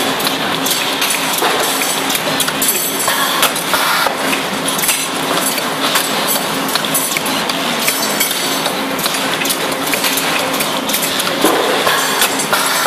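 Pave Huron 8 automated wire-bending machine working 8 mm galvanised wire: a steady machine hum with frequent sharp metallic clicks and clanks as the head grips and bends the wire. Near the end a rising whine sounds as the bending head swings round.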